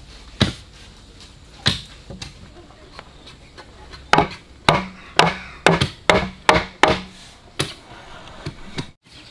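Chopping on wood: sharp blade strikes, a few spaced blows at first, then a quicker run of about two strokes a second from about four seconds in.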